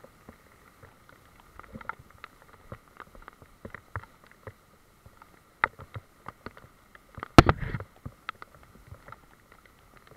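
Raindrops tapping irregularly on the camera over a steady hiss of rain in the trees. About seven seconds in comes one much louder thump with a short rumble.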